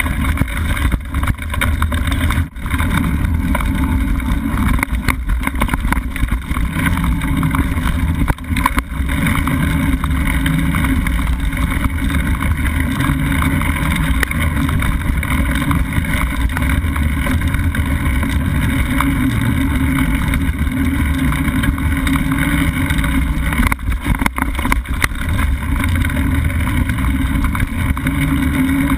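Mountain bike rolling along a dirt singletrack, heard as a steady, loud rumble of wind and riding noise on the bike-mounted camera's microphone, dipping briefly a few times.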